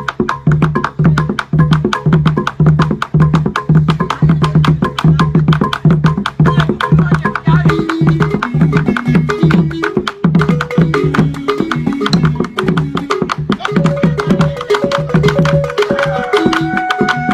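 Balafon (wooden-keyed frame xylophone) played with mallets in a fast, stepping melodic pattern, over a barrel drum beaten with sticks on a steady low beat. A long held note joins near the end.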